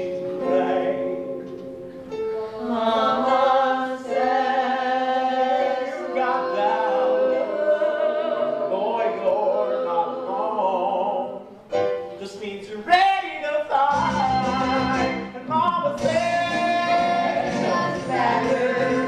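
Several young male voices singing a stage-musical number in harmony over an accompaniment. About 13 seconds in there is a sharp accent, and a fuller accompaniment with a bass line comes in after it.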